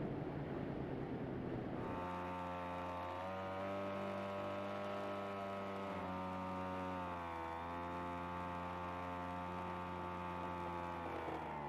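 Flying-wing UAV's motor and propeller heard from on board: a rushing noise for the first two seconds, then a steady many-toned whine whose pitch dips slightly a couple of times. Near the end the whole whine falls steeply in pitch as the motor is throttled back.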